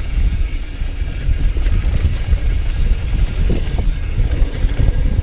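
Wind buffeting the microphone and tyres rumbling over a dirt trail as a downhill mountain bike descends at speed, with a few faint rattles from the bike.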